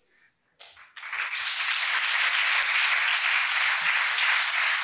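Audience applauding in an auditorium after a talk, starting about a second in and holding steady.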